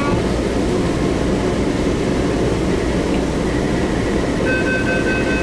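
Steady hum inside a Taipei Metro Wenhu Line Innovia APM 256 car standing at a station. About four and a half seconds in, a rapid high two-tone beeping starts: the door-closing warning before departure.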